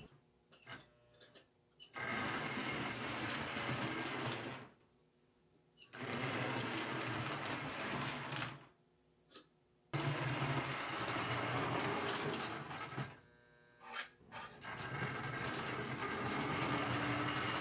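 American Flyer S-gauge model locomotive running along the track, its electric motor whirring. After a few faint clicks it runs in four spells of two to three seconds, stopping briefly between them as it is started and stopped.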